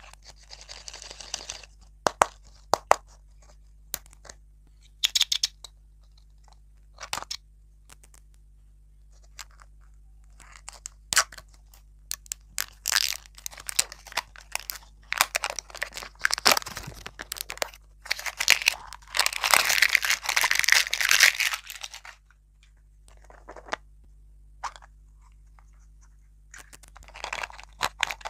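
Thin plastic wrapper crinkling and tearing as it is peeled off a plastic surprise-toy ball, with sharp clicks and taps of the hard plastic shell in between. The crinkling is heaviest in a long stretch past the middle, with a shorter burst near the end.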